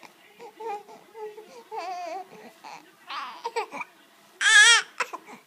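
A baby babbling and cooing in short, wavering sounds, then letting out a loud, high squeal about four and a half seconds in.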